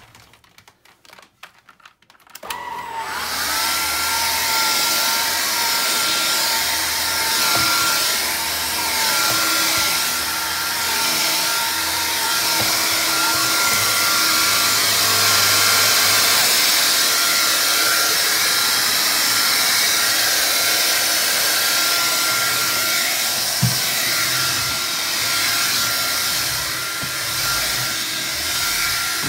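Vax Air Cordless upright vacuum cleaner switched on about two seconds in, then running steadily with a high whine as it vacuums a door mat.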